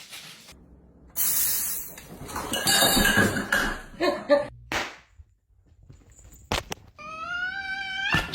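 A cat meowing once, one long call of about a second near the end, preceded by a loud stretch of noise and two sharp clicks.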